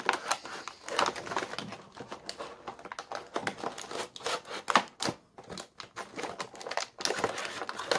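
Packaging crinkling and rustling, with scattered clicks and scrapes, as stuck contents are worked loose from a cardboard box.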